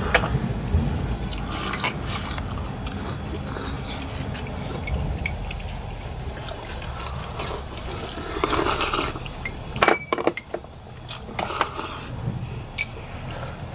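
Pho bowls, spoons and chopsticks clinking, with wet liquid sounds of broth, over a steady background noise; a cluster of sharp clinks comes about ten seconds in and again near the end.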